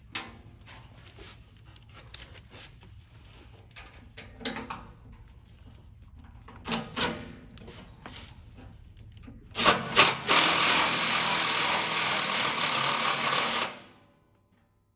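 Light clicks and knocks of parts being handled, then a power drill driving a self-threading bolt: two short blips of the trigger about ten seconds in, then a steady run of about three seconds that stops suddenly.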